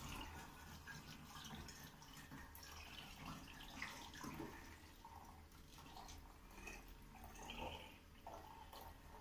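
Faint trickling and dripping of liquid poured from a plastic bowl through a plastic funnel into a glass bottle.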